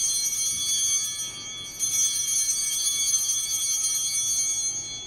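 Altar bells ringing at the elevation of the host during the consecration of the Mass. They are rung twice, first at the start and again a little under two seconds in, and fade toward the end.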